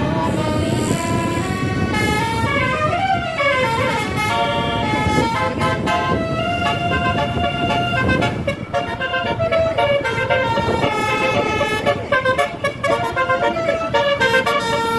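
Telolet bus horn, a multi-tone air horn, sounding a quick run of melodic notes, with a rising-and-falling glide about two to three seconds in, over running vehicle noise.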